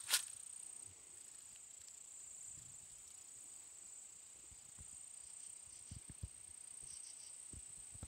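One crunch of a footstep in dry fallen leaves right at the start, then quiet with a faint, steady high-pitched whine throughout. A few soft low thumps come near the end.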